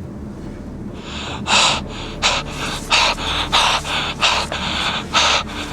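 A person breathing hard in quick, sharp gasps, starting about a second in and repeating irregularly, over a steady low hum.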